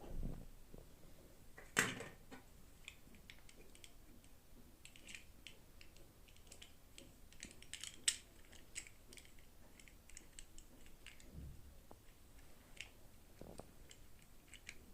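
Plastic toy packaging and doll pieces being handled close up: a soft thump, a sharp click about two seconds in, then a run of small, light clicks and crinkles.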